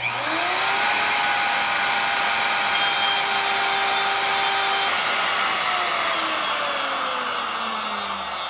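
Bosch 1617 router motor switched on, spinning up to a steady high whine within about a second. About five seconds in, the pitch starts to fall slowly and steadily.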